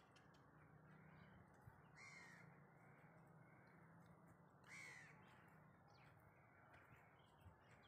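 Faint cawing of a crow, two calls about two seconds apart, over a low steady hum.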